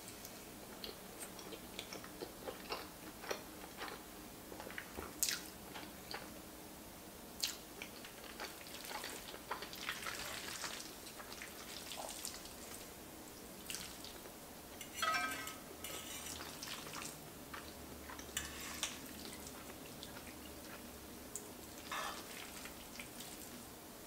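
Close-up eating sounds: wet chewing and slurping of creamy pasta, broken by many small sharp clicks and scrapes as a fork and a wooden spoon work the noodles in an enamelled pot.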